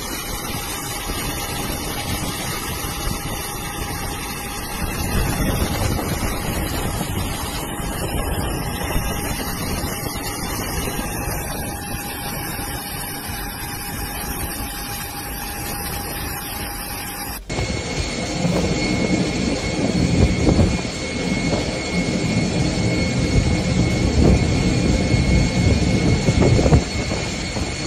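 Storm wind and heavy rain rushing over a flooded airport apron, with a thin steady whine from machinery on top. About two thirds of the way through the sound changes abruptly to a louder, deeper rush with a different high whine.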